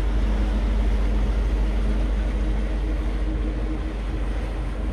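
Sailing catamaran's engines running at low speed while closing on an anchorage: a steady low rumble with a faint hum.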